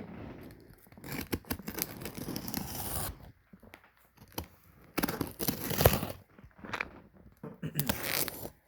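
A shipping box being torn open: packing tape and packaging ripped in three rough spells of tearing, with short pauses between.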